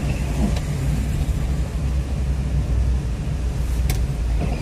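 Inside a car's cabin, driving on a wet road in rain: a steady low drone of engine and tyre noise, with a few faint ticks.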